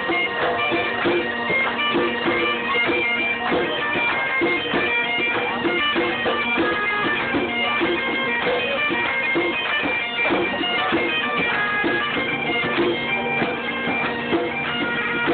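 Live Irish folk band music: a quick melody of short notes over a steady held drone, with acoustic guitar accompaniment.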